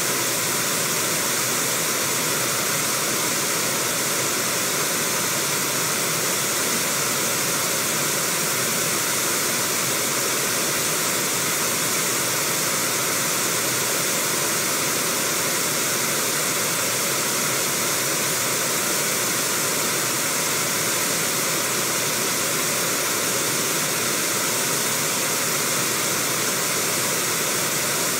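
Steady rush of shallow river rapids, water pouring white over rocks.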